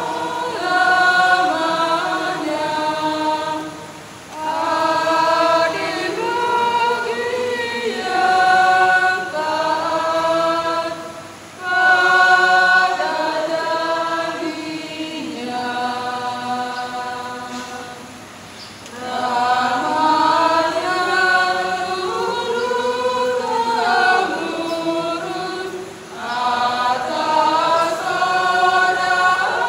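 Church choir singing together in long phrases, with short breaks between them about every seven seconds.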